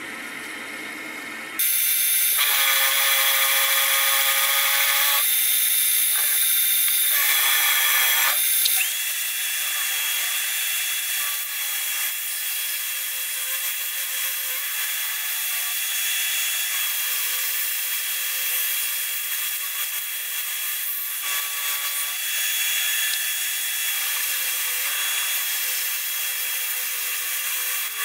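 Benchtop milling machine drilling and end-milling a pocket in a steel block while a shop vacuum sucks the chips from the cut. The sound is a steady loud rushing hiss that comes in about a second and a half in, with a steady high whine running under it from about nine seconds on.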